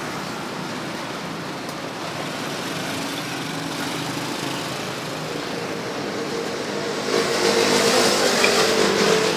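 Steady street noise with a motor vehicle engine running, growing louder about seven seconds in.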